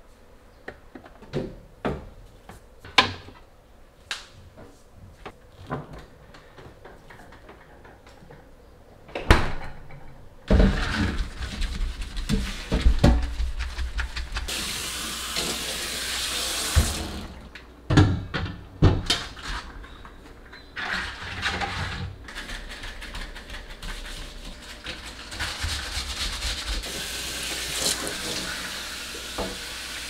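At first, scattered knocks and clatter as plastic containers and shelves are moved about inside a refrigerator. About ten seconds in, a kitchen tap starts running into a stainless steel sink, splashing as a refrigerator shelf is rinsed under it. The water breaks off briefly with a few knocks, then runs again.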